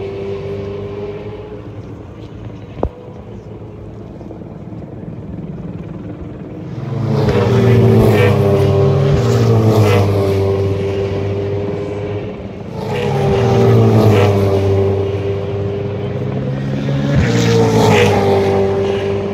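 V8 Supercars race cars passing: an engine note at a distance at first, then three loud passes a few seconds apart, the engine pitch rising and falling with each car.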